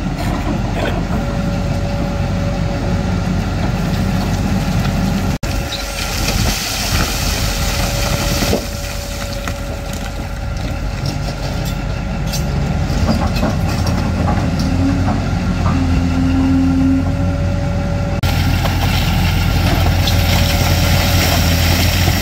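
Large Volvo hydraulic excavator's diesel engine running steadily under load, with a steady thin whine above the drone. There is a single knock about eight seconds in, and rock pours into the haul truck's steel bed near the end.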